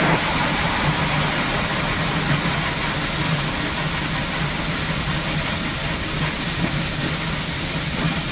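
Shelled corn pouring from a metal spout into grain, a steady rushing hiss that grows heavier just after the start as the stream thickens from a trickle. A low steady machine hum runs underneath.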